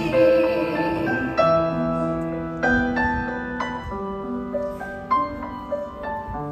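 Grand piano playing a slow instrumental passage: chords struck about every second and left to ring, with no singing.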